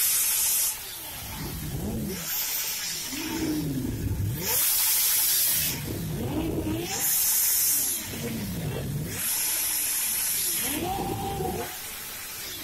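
Kawasaki Ninja H2's supercharged inline-four engine revved while standing still, in a series of throttle blips that each rise and fall in pitch. Loud bursts of hiss come between the revs.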